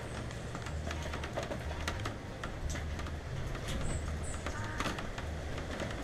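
Rain drops striking the camera's cover in irregular sharp ticks, with wind buffeting the microphone in low rumbling surges. Two brief high chirps sound about four seconds in.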